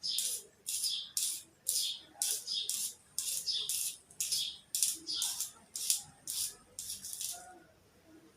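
Pencil being crunched close up: rapid, crisp, gritty crunches, about three a second, that stop shortly before the end.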